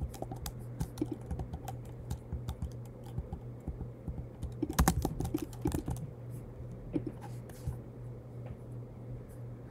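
Typing on a computer keyboard: irregular key clicks, with a louder flurry of keystrokes about five seconds in.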